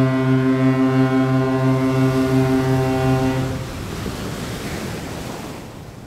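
A large ship's horn sounds one long, low, steady blast that cuts off about three and a half seconds in. A noisy rushing wash follows and fades toward the end.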